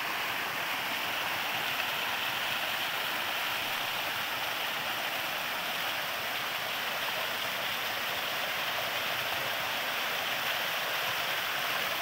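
Small waterfall pouring and splashing down a steep rock face: a steady rush of water.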